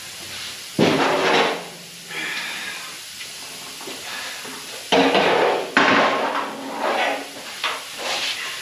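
Loose pieces of scrap sheet metal clattering and scraping as they are picked through and pulled out by hand. There is a loud clank about a second in and a longer, louder rattle with some ringing from about five seconds in.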